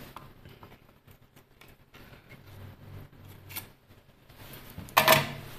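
Light metal-tool clicks and scraping on a graphics card's circuit board as an inductor is pried off, with one sharp snap about five seconds in.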